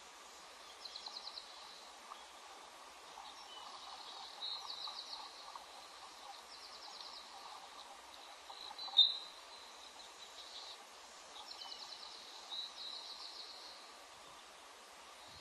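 Short, high-pitched chittering trills from a bird, each a quick run of rapid even pulses lasting about half a second, repeated five or six times over a steady outdoor hiss. About nine seconds in there is a single sharp click, the loudest sound.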